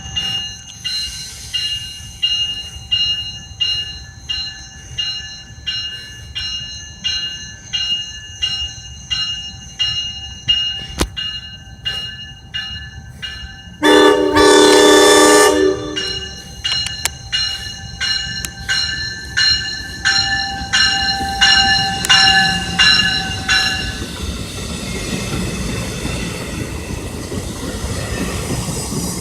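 A bell rings steadily at about one and a half strokes a second while a New Jersey Transit train approaches. About halfway through, the train's air horn sounds one loud blast of about two seconds, and near the end the train rolls past with steady wheel and rail noise.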